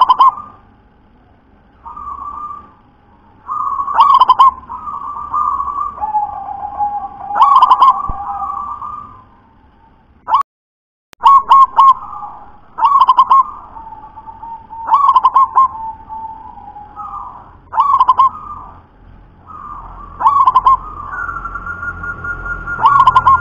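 Zebra dove (perkutut) cooing: a string of coo phrases, about one every two to three seconds, each with a sharp, loud accent. The sound drops out briefly about ten seconds in.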